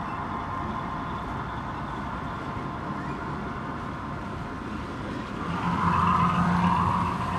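HO-scale model trains running on a layout: a steady mechanical hum and rumble. It grows louder about five and a half seconds in, with a low steady drone.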